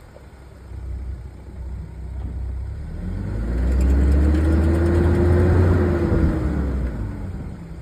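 BMW E46's engine revved up and let back down: a deep engine rumble swells over about three seconds, with a tone rising in pitch, holding, then falling as it settles.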